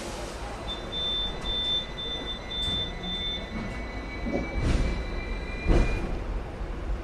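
Hong Kong double-decker electric tram running on its tracks, heard from on board as a steady low rumble. About six short electronic beeps sound evenly through the first few seconds, a faint thin whine rises slowly, and two sharp knocks follow later, the second the loudest.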